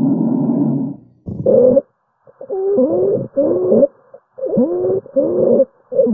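Recorded lung sounds through a stethoscope. A noisy breath sound stops about a second in. After a brief pause comes a quick run of short breaths with musical, gliding tones: wheeze-type adventitious sounds, a sign of narrowed airways.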